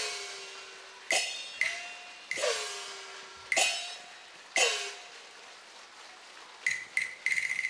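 Cantonese opera percussion of gong and cymbals marking a stage fight: single ringing strikes about a second apart, each gong tone dropping in pitch as it rings, then a quick run of strikes near the end.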